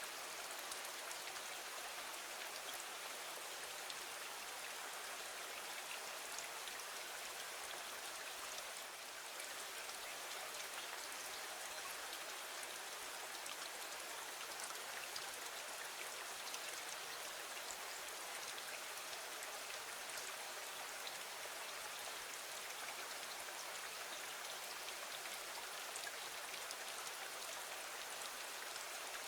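Steady rain falling against a window: an even hiss with fine, scattered ticks of individual drops.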